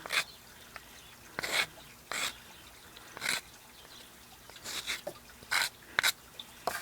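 Short hand scraping strokes on the edge of a small routed wooden disc, about seven of them, irregularly spaced, taking off burrs left by a router bit that the woodworker thinks is dull.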